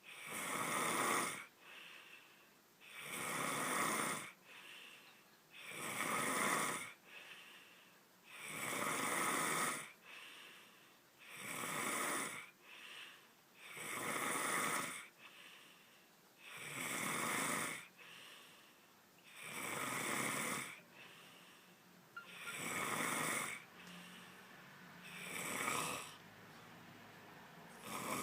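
A sleeping person snoring loudly, with a rasping snore about every two and a half to three seconds and quieter breaths in between.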